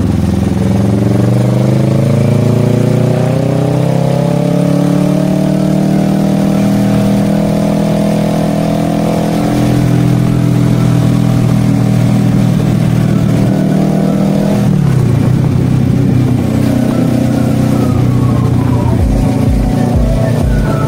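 Kawasaki Versys 650's parallel-twin engine under way, its pitch climbing slowly for several seconds as the bike gains speed, then holding. About two-thirds of the way through the revs drop suddenly, as at an upshift, and the engine carries on at a lower, steady pitch.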